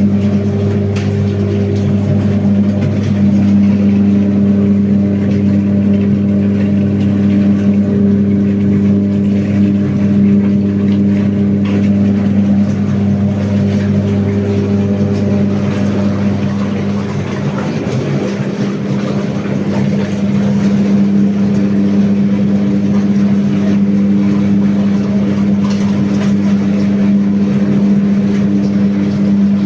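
Amgun-2A activator-type washing machine running, its electric motor and agitator giving a loud, steady hum that eases briefly about two-thirds of the way through.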